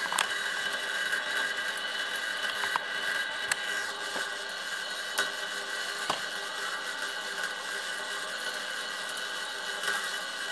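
High-voltage electrical supply running a glowing Crookes tube: a steady electrical buzz and hiss with several high whining tones, broken by a few sharp clicks.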